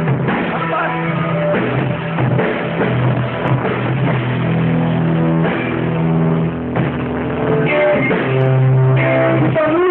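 Live rock band playing loud, with a drum kit.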